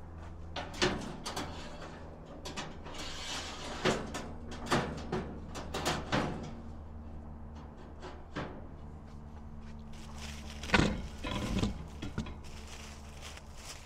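Metal parts and hardware of a Dyna-Glo vertical smoker clicking and knocking as it is assembled, with scattered clicks and a louder cluster of knocks near the end, over a steady low hum.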